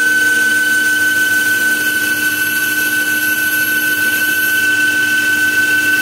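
Metal lathe running, its spindle turning a small metal knob while a cutting tool machines it. A steady high whine sets in right at the start and holds over the even machine noise.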